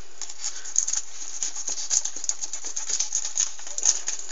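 Knife cutting through a red snapper being filleted: an irregular crackling run of small clicks and scrapes, with a few louder clicks.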